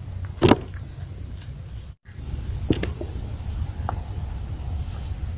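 Outdoor field ambience: a steady high insect drone over a low rumble, with a brief vocal sound about half a second in and a few light ticks later. The audio drops out for a moment about two seconds in.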